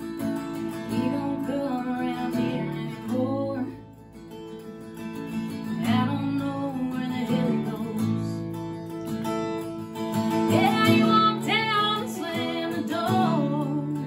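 A woman singing a country song, accompanying herself on a strummed acoustic guitar; her sung phrases come in about one, six and ten seconds in, with the guitar carrying on between them.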